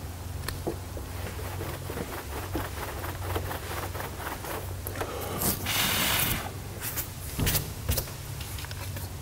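Microfiber towel wiped over wet, freshly sanded clear coat on a car panel, with small handling clicks and knocks; a louder rub of about a second comes about halfway through. A steady low hum sits underneath.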